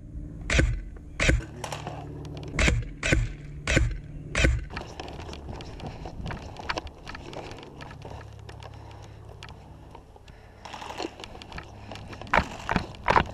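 A run of about eight sharp clacks over the first four and a half seconds, irregularly spaced roughly half a second apart. After them come a low steady rumble and scattered faint clicks.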